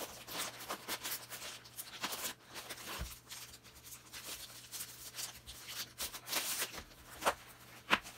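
Thin plastic bag rustling and crinkling as a tool case is worked out of it by hand, with two sharp clicks near the end, the second the loudest. A faint steady low hum runs underneath.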